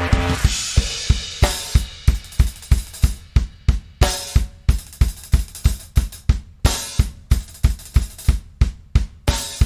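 Live drum kit playing a steady beat of kick drum, snare and cymbals. A held synth chord dies away in the first half-second, leaving the drums nearly on their own.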